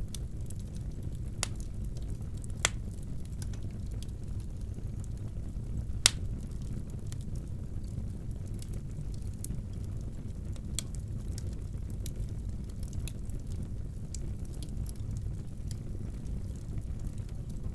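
Wood fire burning in a fireplace: a steady low rumble with scattered sharp crackles and pops, the loudest pop about six seconds in.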